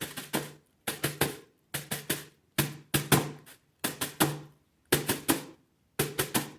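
Homemade snare drum, a plastic toy bin with a plastic bag stretched over its open side, beaten with a spoon in a repeating march rhythm: groups of three quick strikes, about one group a second.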